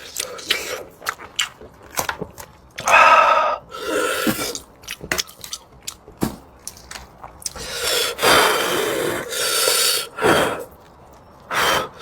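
A person eating close to the microphone: many short wet clicks and smacks of chewing, broken by several longer noisy slurps and sucks lasting up to a second.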